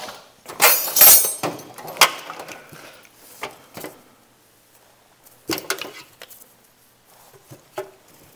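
Metal hand tools being rummaged and picked up, clinking and clattering. The loudest clatter comes in the first second or so, followed by scattered single clinks and a second short flurry about five and a half seconds in.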